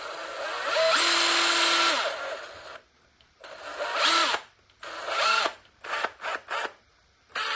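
Makita XST01 Soft Impact hydraulic impact driver running with no load, worked on and off by its trigger: one run of about two and a half seconds, then two shorter runs and a few quick blips, the motor pitch rising each time it spins up. The motor is loud because the housing is not yet screwed fully together.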